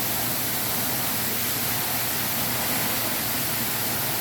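Indoor waterfall's water falling and splashing: a steady, even rushing hiss.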